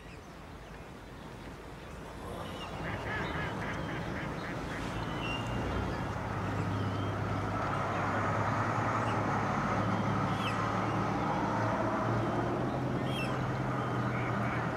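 Small cabin cruiser's engine started and then running steadily, getting louder over the first few seconds, with a few short high calls over it.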